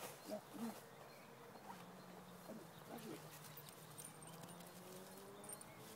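Faint, short whines from a Pyrenean Shepherd dog: two in the first second and a few more around two and a half to three seconds in, over a steady low hum.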